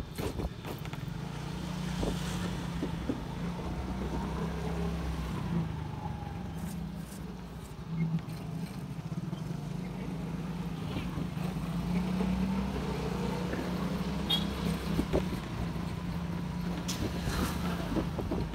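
A vehicle engine running steadily at low speed, its low hum rising and falling a little as it creeps along a narrow lane.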